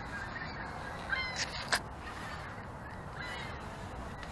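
Birds calling a few short times, with harsh crow-like calls, over a steady background hiss; a sharp click a little under two seconds in is the loudest sound.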